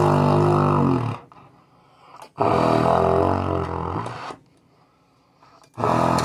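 Trumpet blown to make very low, buzzy notes that sound like a tuba or sousaphone, or a big fart. It gives three long blasts with short pauses between them, and the first slides down in pitch as it starts.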